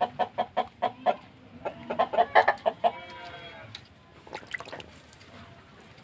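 A chicken clucking in quick repeated pulses, about five a second. About two seconds in come a cluster of louder calls and one longer drawn-out call, then only faint clicks.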